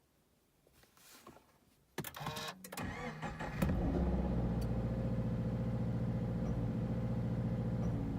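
Toyota GT86's FA20 flat-four boxer engine being started: the starter cranks briefly about two seconds in, the engine catches and flares about a second and a half later, then settles into a steady idle.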